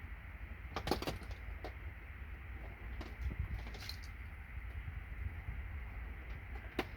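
Low steady background hum with a few light clicks and knocks, the loudest about a second in: small plated scrap parts being handled.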